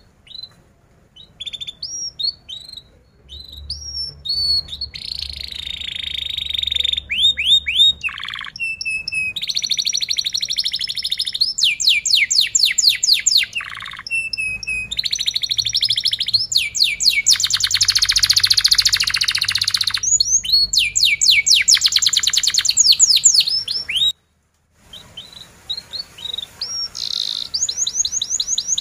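Domestic canary singing: a few short separate chirps at first, then long loud phrases of rapid trills and rolling repeated notes. About three-quarters of the way through, the sound cuts out completely for under a second.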